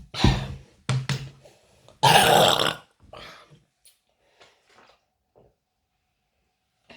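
A person burping after gulping cola. Two short, low burps come in the first second or so, then a longer, much louder and noisier burp about two seconds in, followed by a few faint sounds.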